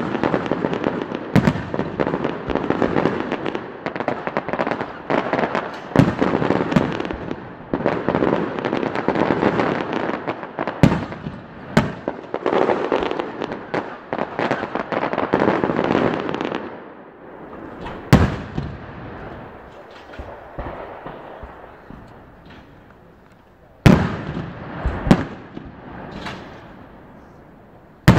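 Professional aerial firework shells bursting, with a dense run of bangs and crackle for most of the first seventeen seconds. It then thins to a few single loud booms, one soon after the lull begins and several in the last few seconds.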